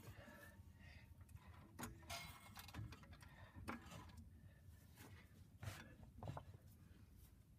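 Near silence with a few faint, scattered clicks and knocks from the metal wheels of a reel mower unit being turned by hand.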